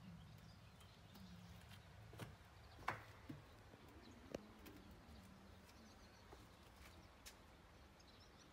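Near silence: faint outdoor ambience with a few soft clicks, the loudest about three seconds in.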